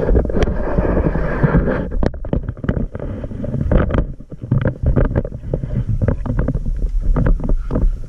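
Muffled underwater noise picked up by a GoPro in its waterproof housing: a dense low rumble of moving water, with many quick crackling clicks and pops from about two seconds in as the camera is swum up toward the surface.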